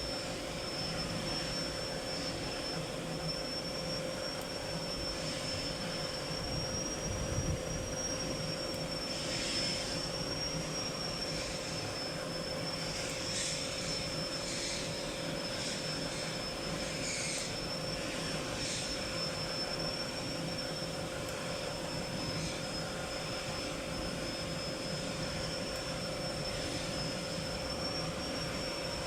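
Steady machine drone in a plastics factory, with a constant hum and a high, slightly wavering whine; a few short hisses come between about ten and nineteen seconds in.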